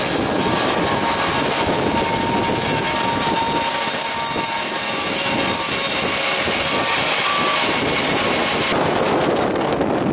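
Tracked lifeboat launch tractor's engine running steadily as it tows an inflatable lifeboat on its trailer, with a steady high tone over the engine noise. About nine seconds in the sound changes abruptly, the hiss dropping away as wind buffets the microphone.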